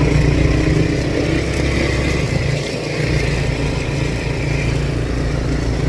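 ATV engine running under way, steady, with its low note dipping briefly about halfway through.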